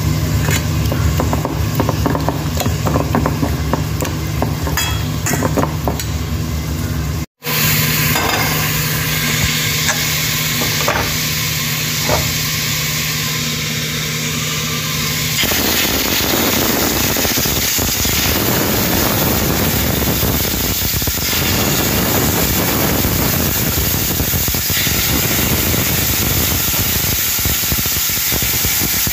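Water boiling hard around corn cobs in a pot, a steady bubbling hiss. Before it, after a brief cut to silence about seven seconds in, there is a steady low hum with scattered small clicks.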